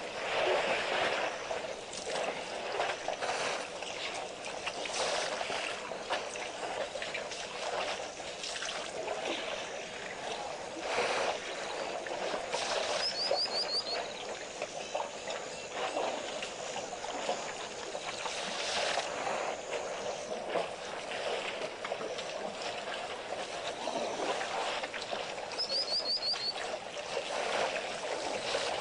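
Water splashing and sloshing as a herd of African elephants drinks at a waterhole, a steady irregular churning. A short, high, rapid trill sounds twice, near the middle and near the end.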